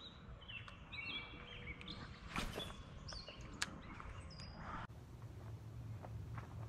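Small birds chirping in short, repeated high notes over faint outdoor background noise, with a sharp click about three and a half seconds in. About five seconds in the sound changes abruptly to a steady low hum with faint ticks.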